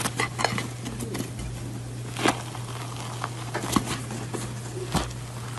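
Fingers tearing open a chocolate lava cake, its crust crackling and crumbling in irregular small clicks, over a steady low hum.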